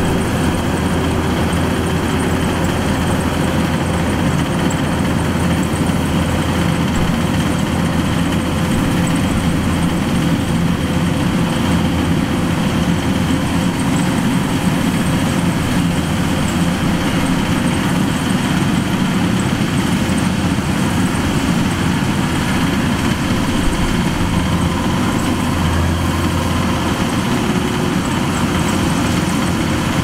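Kubota DC-105X combine harvester's diesel engine and machinery running steadily while harvesting rice.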